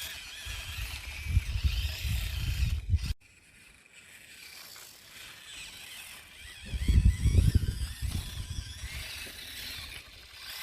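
Axial SCX24 1/24-scale RC crawler's small electric motor and gear train whining, the pitch wavering up and down with the throttle. There are two bursts of low rumble, and the sound cuts off abruptly about three seconds in before resuming more quietly.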